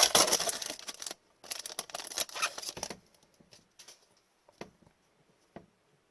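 Foil trading-card pack wrapper crinkling and tearing open in two bursts over the first three seconds, followed by a few light taps and clicks of cards being handled.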